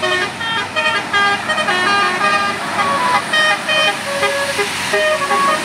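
Bus 'telolet basuri' musical horn playing a fast tune of short, clear notes that jump up and down in pitch.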